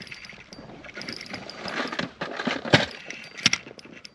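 Handling noise of fishing tackle in a drift boat while a small rainbow trout hooked on a spoon is played in on a spinning rod: several irregular sharp knocks and clicks over a light rustling, the loudest about three quarters of the way in.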